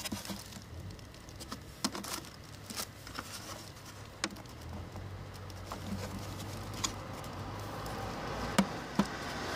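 Scattered small plastic clicks and taps as fingers pry at the clips of a car tail light's plastic bulb cover, the two sharpest near the end. A low rumble builds in the background over the second half.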